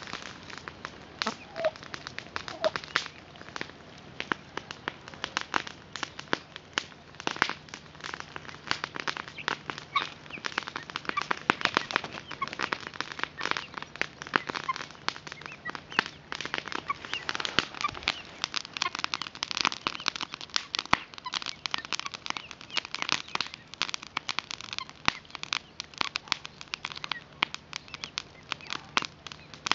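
Chickens and young guineafowl pecking grain off hard, bare dirt: a dense, irregular patter of quick beak taps, busiest in the middle of the stretch.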